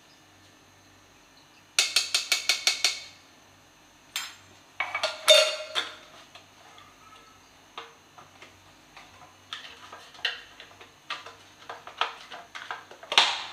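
A metal spoon rapped about eight times in quick succession against metal to knock ghee off it, followed by a few louder metal clinks with a brief ring, then lighter scattered taps and scrapes of spoon on tin and pan.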